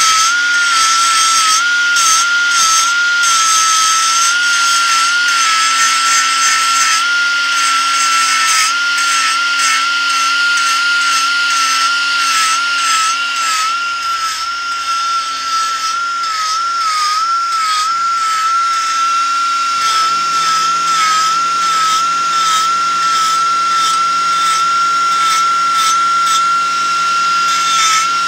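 Finger belt sander running with a steady high whine, its belt grinding on thin wrought iron and the pitch wavering slightly as it is pressed on. It is dressing TIG welds on the repaired leaves flush with 120-grit. About two-thirds of the way through, the lower tones of the tool change.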